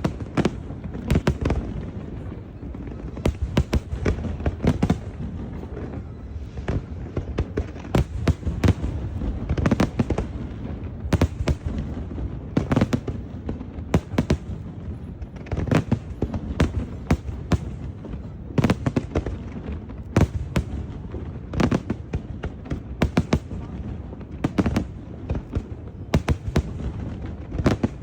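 Fireworks display: aerial shells bursting in clusters of sharp bangs, several a second at times, over a continuous low rumble of echoing booms.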